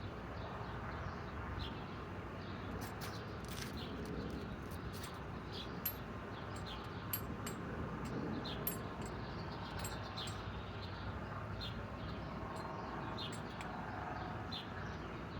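Quiet steady background noise with small birds chirping, short high chirps repeated at irregular intervals; no drill is running.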